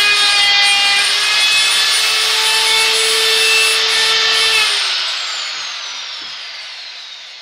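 Electric router with a chamfer bit running and cutting along a wooden edge, a steady high whine over a hiss. About four and a half seconds in it is switched off, and the whine falls in pitch and fades as the bit spins down.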